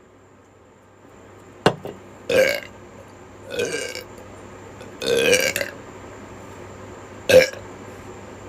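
A woman burping several times. A short sharp sound comes about a second and a half in, then three drawn-out burps a little over a second apart, the third the longest, and one short burp near the end.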